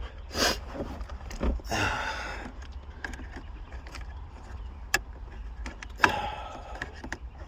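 Hand work on a car's plastic gear-shifter console trim: a few sharp clicks and a scraping rattle as parts are pried and handled.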